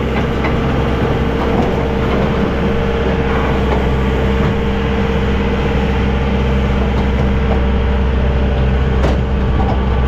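A motor vehicle's engine running steadily, a constant low drone with a steady hum and a wash of road noise over it.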